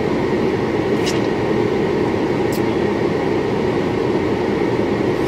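Car air-conditioning blower running steadily inside the cabin, a constant rushing hiss. Two faint short clicks come through it, about a second in and again about halfway.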